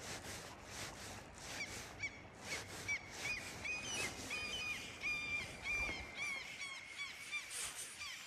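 Fly reel's click drag buzzing in short runs of even, high pitch, about two a second, each run bending slightly in pitch at its ends; it starts about one and a half seconds in.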